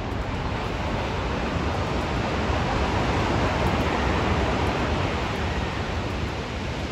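Steady rushing outdoor noise, swelling a little in the middle, with no distinct calls or knocks.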